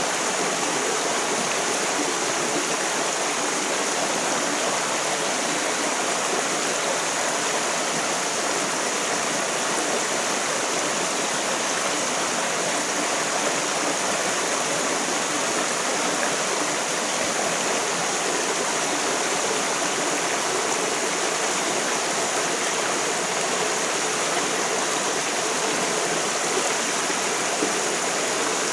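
Shallow stream running over rocks and a small cascade: a steady rush of water.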